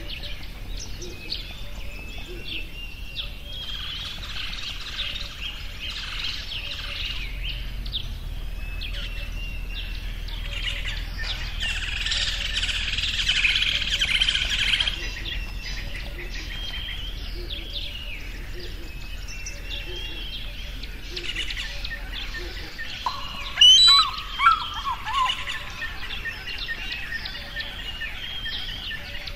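Many small birds chirping and singing together in a steady, overlapping chorus, thickening for a few seconds in the middle. Two loud, sharp bird calls stand out about three-quarters of the way through.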